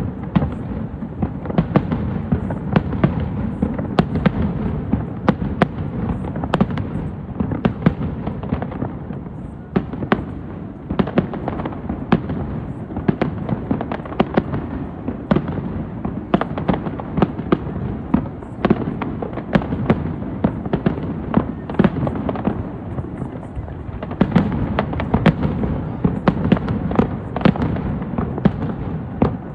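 Fireworks display: a dense, continuous barrage of aerial shell bursts and crackle, with sharp bangs several times a second over a steady low rumble.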